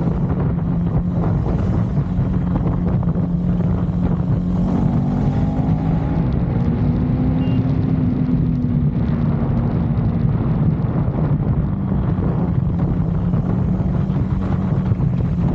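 KTM 390 motorcycle's single-cylinder engine running at a steady cruise, with wind rushing over the microphone. The engine note rises a little about halfway through and then settles back.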